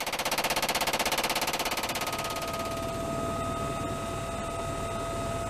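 Helicopter door-mounted machine gun firing a long, rapid, even burst that fades away after about three seconds, after which a steady high whine is left.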